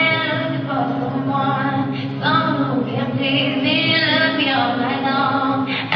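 Backing music: a sung melody over held low chords.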